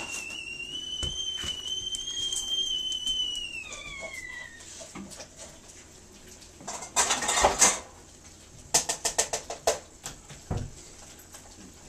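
A metal dog bowl clattering and scraping on a tile floor as a puppy eats snow from it: a loud scrape about seven seconds in and a quick run of clinks about nine seconds in. At the start a long, high, whistle-like whine fades out about four seconds in.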